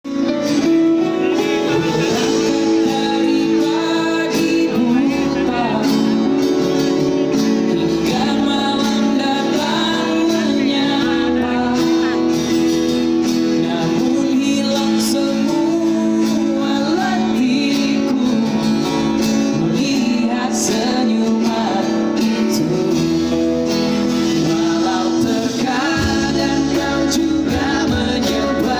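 Live band playing a song: male lead vocal over acoustic guitar, electric guitars, bass guitar and drums.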